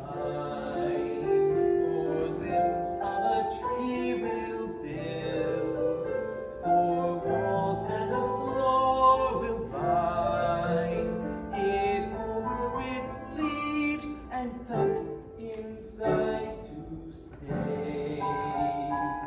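A solo voice singing a slow show tune, with piano accompaniment under it.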